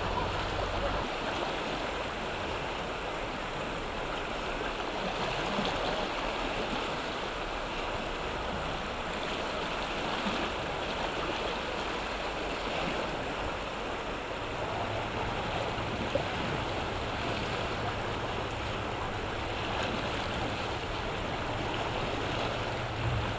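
Whitewater rapids of a river in spring flood, rushing steadily.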